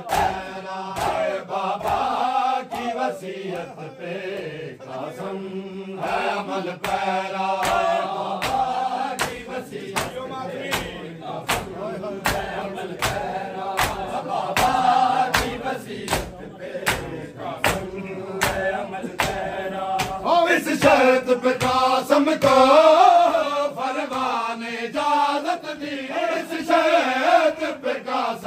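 A group of men chanting a noha (Shia lament) together over a steady rhythm of sharp chest-beating slaps (matam) from a crowd of mourners. The chanting grows stronger about two-thirds of the way in.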